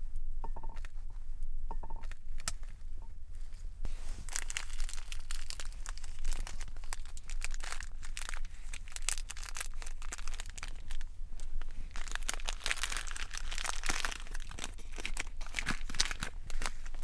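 A foil packet crinkling and tearing as it is pulled from a cardboard box and opened by hand. A few light taps come first, then about four seconds in a dense crackle of foil that is loudest in the second half.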